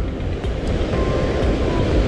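Sea surf washing onto the beach with wind rumbling on the microphone, under soft background music with a light beat about once a second.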